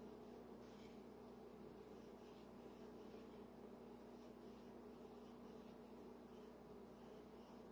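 Faint scratching of a coloured pencil on drawing paper in short, irregular strokes, over a steady low hum.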